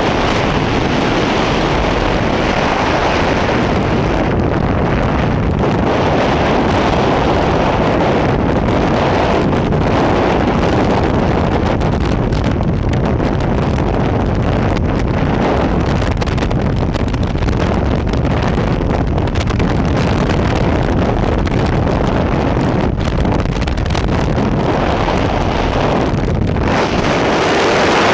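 Steady, loud rush of freefall wind blasting across the microphone of a camera falling alongside a tandem skydive, growing slightly louder near the end.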